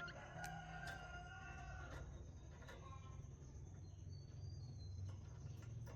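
A rooster crowing once, faintly, for about two seconds, with a few light clicks and a steady low hum underneath.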